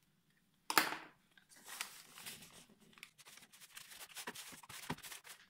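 Washi paper softly rustling and crinkling as hands press and smooth it over a rattan frame on a mold, with one louder, sharp sound about a second in.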